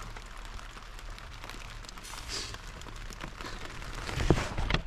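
Rain falling steadily, a fine patter of scattered drops. About four seconds in comes a louder, low, dull thump.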